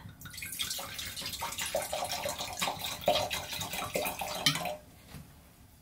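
Wine poured from a bottle into a stemmed wine glass, splashing into the glass and stopping about three-quarters of the way through.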